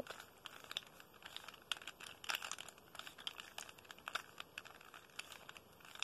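A 3x3 Rubik's cube being twisted by hand: faint, irregular plastic clicks and rattles as its layers turn.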